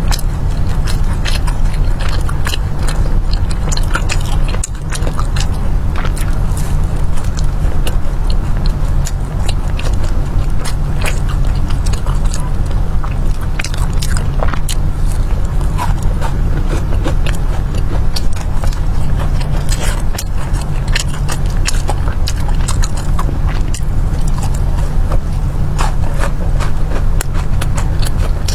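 A person biting and chewing crisp fried dough pastries close to the microphone, with many short crunching clicks, over a steady low rumble.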